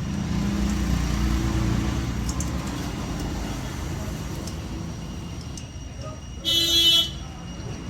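Low rumble of passing road traffic, strongest over the first two seconds, then a vehicle horn honks once, briefly and loudly, about six and a half seconds in.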